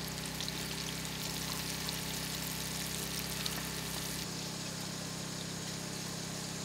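Steady pouring or running water over a steady low motor hum. About four seconds in the sound shifts and the deepest part of the hum drops away.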